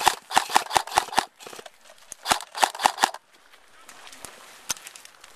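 Airsoft rifle firing quick repeated shots, sharp pops about five a second: a run of about seven, then after a short pause about five more, and one single shot near the end.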